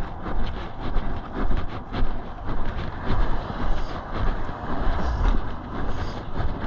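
Road traffic passing close by: a heavy vehicle's low rumble and tyre noise going past, with wind on the microphone.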